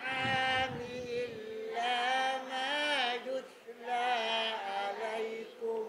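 Class of learners chanting a Quranic verse back in melodic Arabic recitation (tajwid), in long drawn-out, wavering phrases, quieter and more distant than the teacher's headset voice.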